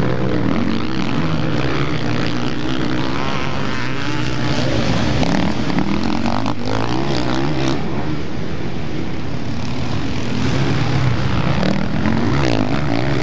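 Several MX1 motocross bikes racing together, their engines overlapping and rising and falling in pitch as the riders work the throttle.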